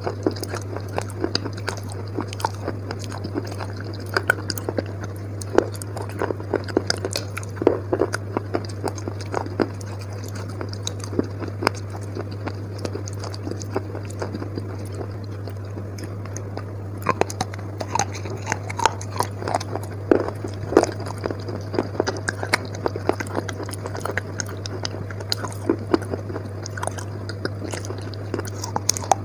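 Close-up chewing and crunching of wet chalk paste, with irregular crisp crunches and wet mouth sounds. The crunching is sparser around the middle and busier in the last third, over a steady low hum.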